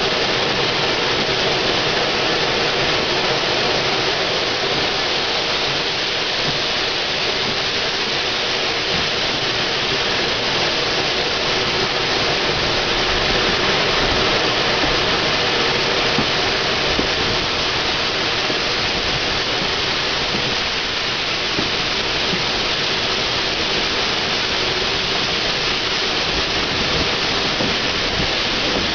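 Steady rushing noise from the cab side of a moving GWR pannier tank steam locomotive, with no distinct exhaust beats.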